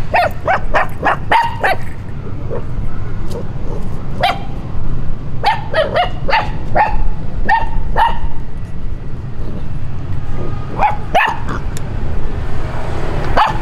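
Puppies barking in short runs of high yaps, several in quick succession, then scattered single barks, over a steady low rumble.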